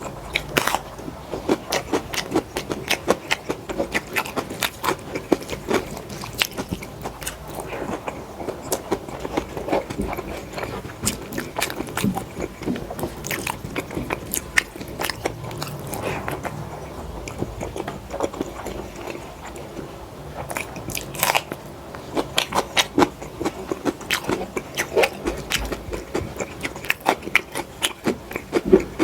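A person eating close to the microphone: continuous chewing and biting with many sharp, crunchy clicks, from a meal of dal rice, fried potatoes and chillies.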